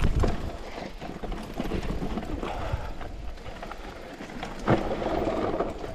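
Electric mountain bike running down a rocky singletrack: tyres crunching over gravel and stones while the bike rattles with constant small knocks, and one sharper knock near the end as it hits a bump.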